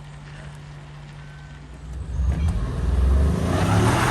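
A vehicle's engine: a steady low hum at first, then getting much louder from about two seconds in as the vehicle drives into the flood water at the ford. A rising hiss of splashing water builds toward the end.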